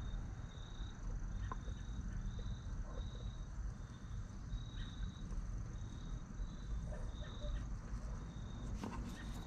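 A cricket chirping steadily, short high chirps repeating about every half second, over a low steady rumble. A sharp click comes near the end.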